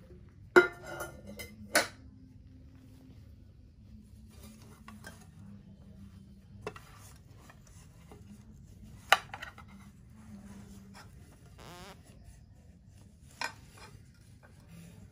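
Small toy cooking pots and lids being handled and knocked together, giving a few sharp clinks and knocks, the loudest about half a second in and about nine seconds in, with a short scrape near twelve seconds.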